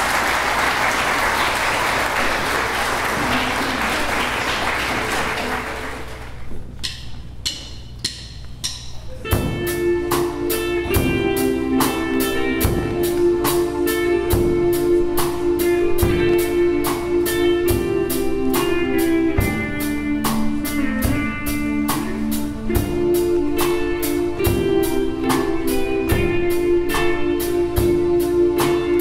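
Audience applause that dies away after about six seconds, a few sharp clicks, then a small live band starts up: electric guitar and drum kit playing a song intro with a steady beat under held chords.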